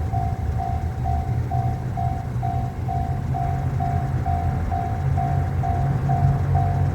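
Japanese railroad crossing warning bell ringing a steady, evenly repeating electronic ding, a little over two strikes a second, warning of an approaching train. Under it runs the low rumble of a diesel train, a JR Shikoku 2700 series limited express diesel railcar.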